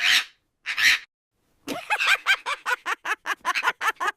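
Parrot giving two short, harsh squawks, then a fast string of short chattering calls, about six a second.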